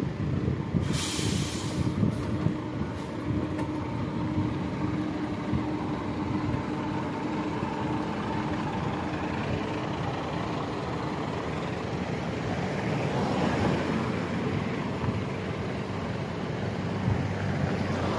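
Road traffic: engines of slow-moving vehicles running steadily, with a brief hiss about a second in.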